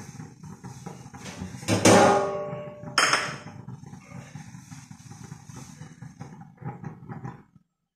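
Pak choy cooking in a wok over a gas burner, a steady low rush, with two loud metal clanks that ring briefly, about two and three seconds in, and a few lighter clicks later. The sound cuts off suddenly just before the end.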